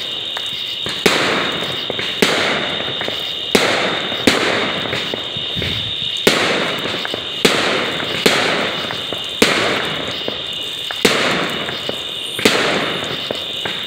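Fireworks going off close by: about a dozen sharp bangs, roughly one a second, each trailing off in a fading crackle and echo.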